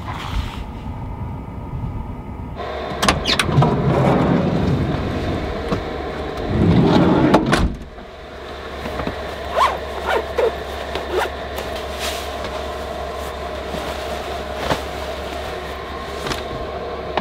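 Volkswagen Vanagon van running with a steady hum and scattered clicks and knocks. A louder rushing stretch in the first half cuts off abruptly.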